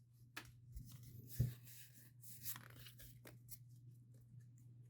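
Faint rustling and light clicks of Pokémon trading cards being handled and slid through the hand, with one sharper tap about a second and a half in.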